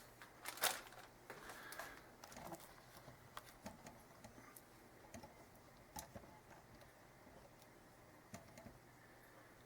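Faint, scattered small clicks and rustles of food packaging being handled, a louder cluster about half a second in, thinning out after about six seconds.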